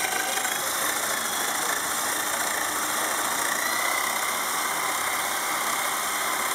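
Homemade planetary gear train spinning at high speed, driven by a cordless drill: a steady mechanical whir of drill motor and meshing gears, with a faint whine that edges up slightly about two seconds in.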